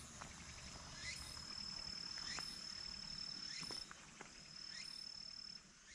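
Insects singing faintly: a steady high-pitched trill that breaks off briefly near the middle and stops near the end, over a short rising call repeated about once a second.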